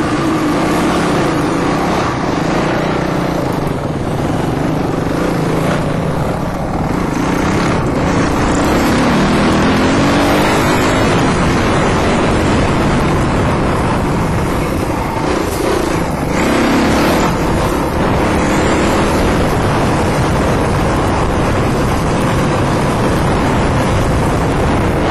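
Dirt bike engine running hard, heard close from the rider's helmet. Its pitch climbs and drops as the throttle is worked, with the highest runs about a third of the way in and again past the middle.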